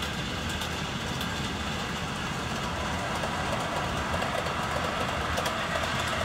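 HO scale model train running on the layout's track: a steady low rumble with light clicking of the wheels on the rails.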